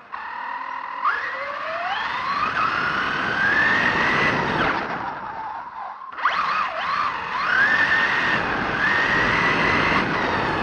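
Electric motor and drivetrain of a radio-controlled buggy whining as it drives, the pitch rising as it speeds up and falling as it slows, several times over, with tyre and gear noise underneath. The sound drops out briefly about six seconds in and then picks up again.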